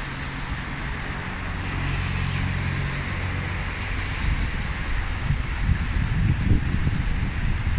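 Rain falling steadily, a dense hiss that thickens about two seconds in. Under it a steady low engine hum runs through the first half, and uneven low rumbling takes over from about halfway.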